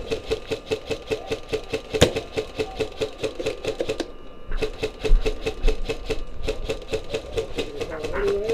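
Rapid, steady mechanical clicking, about five or six clicks a second, with one sharper crack about two seconds in.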